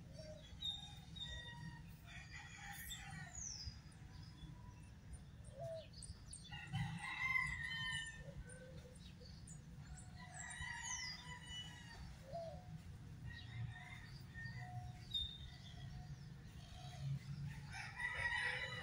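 A rooster crowing several times, each crow a long drawn-out call, with small birds chirping in between over a steady low rumble.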